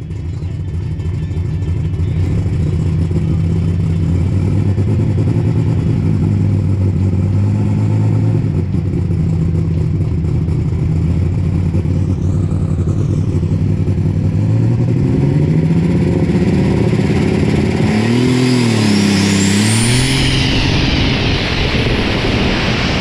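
John Deere super stock pulling tractor's turbocharged diesel engine running steadily, then revving up about two-thirds of the way in as it makes its pull. The engine note climbs and wavers, and near the end a high turbo whine sweeps up and falls as the tractor passes close by.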